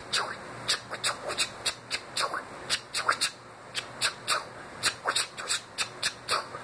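Vocal imitation of DJ turntable scratching made with the mouth: quick sweeping bursts, several a second, some gliding up or down in pitch.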